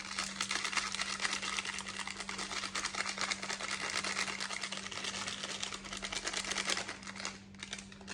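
Chicken 65 masala being worked into wet, marinating chicken in a bowl: a dense, rapid crackling and squishing that drops away near the end.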